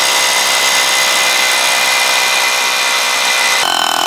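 Cordless hammer drill running steadily as its masonry bit bores into a concrete block, with a steady high whine over the grinding. The sound changes abruptly near the end.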